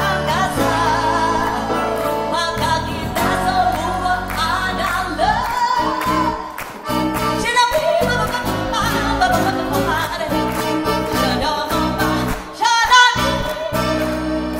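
A woman singing a pop ballad live with a small acoustic band: grand piano, accordion, acoustic guitar and electric bass. Her voice bends and slides between notes over the held chords.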